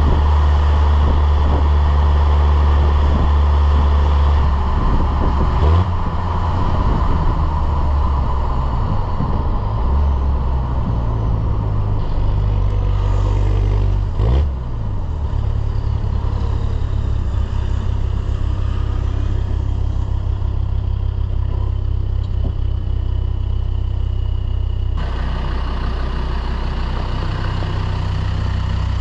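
Land Rover Defender Td5 five-cylinder turbodiesel, tuned to about 200 hp, running with a steady low drone. Its note shifts about five seconds in and dips briefly about halfway through, then holds steady.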